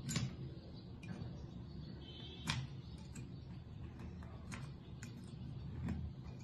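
A knife blade scraping an old gasket off an air compressor's metal valve plate: a few short, sharp scrapes and ticks, the sharpest about two and a half seconds in, over a low steady hum.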